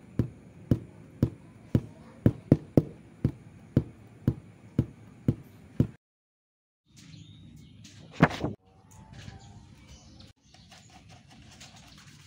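Sharp knocks of a tool working on the motorcycle's rear wheel assembly, evenly about two a second for the first six seconds, then stopping suddenly. After a short silence, one loud knock, then quieter rubbing noise.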